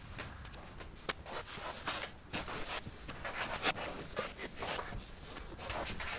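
Cloth rag rubbing and wiping along the plastic and metal door frame of a side-by-side UTV, cleaning the seal surface with rubbing alcohol. The sound is faint, irregular rustling and scuffing with a few light knocks.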